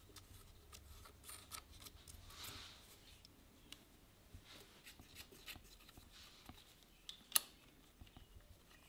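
Faint small metallic clicks and taps of nuts and washers being handled and threaded by finger onto a two-stroke cylinder's base studs, with one sharper click about seven seconds in.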